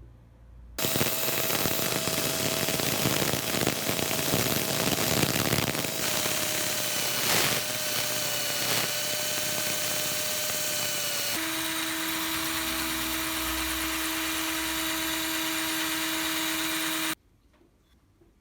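Electric power tool running, with a steady whine over a harsh noise. It starts suddenly about a second in, changes pitch abruptly twice, and cuts off sharply near the end.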